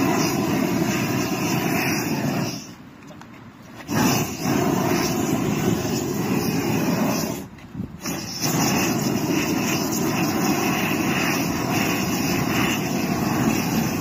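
Hose-fed gas roofing torch burning with a steady rushing noise as it heats torch-on bitumen roofing membrane. It drops away twice, about three seconds in and again just past halfway, when the flame is turned down low.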